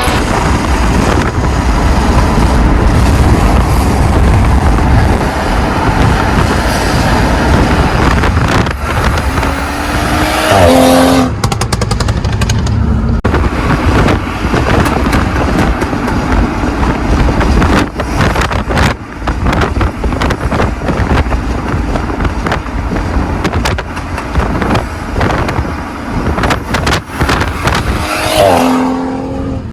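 BMW M235i's turbocharged inline-six, fitted with a VRSF downpipe, pulling hard twice with the revs rising, and between the pulls the exhaust burbling with rapid pops and crackles on lift-off in Sport Plus mode.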